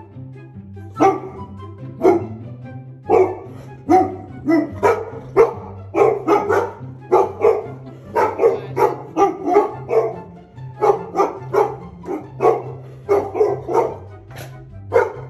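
A golden retriever and a Newfoundland barking loudly and repeatedly, often several barks a second in quick runs: alert barking at a van outside the window. Background music with a repeating bass line plays under it.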